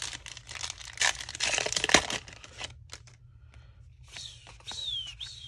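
Foil trading-card booster pack wrapper crinkling and tearing, with cards rustling and clicking as they are handled. The rustling is loudest about one to two seconds in, and a few short falling squeaks come near the end.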